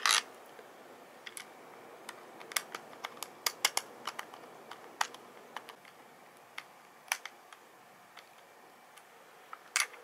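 Scattered light clicks and taps of hard plastic robot-kit parts and a screwdriver being handled, about a dozen over several seconds, with a louder click near the end.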